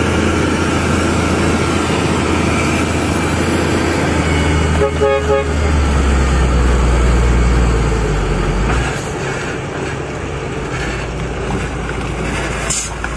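Heavy diesel dump truck, fully loaded, with its engine running under load as a steady low drone that eases off about nine seconds in. A short horn toot sounds about five seconds in.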